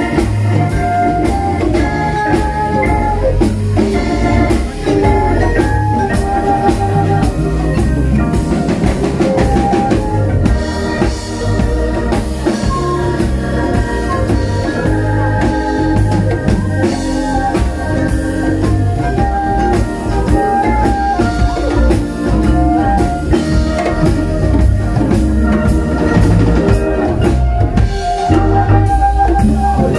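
Live band playing an instrumental tune: Hammond B3 organ to the fore over drum kit and bass, with flute and vibraphone.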